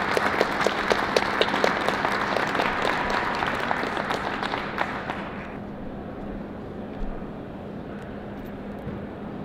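Audience applauding, dying away about five and a half seconds in, then a quiet hall with a steady low hum.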